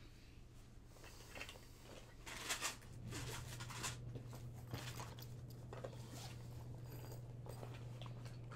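Off-camera rummaging among art supplies: a string of short rustles and clicks of packaging and small containers being handled, over a low steady hum.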